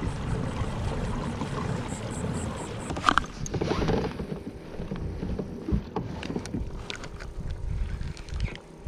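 Water lapping against the hull of a plastic fishing kayak, with wind on the microphone and a few light clicks.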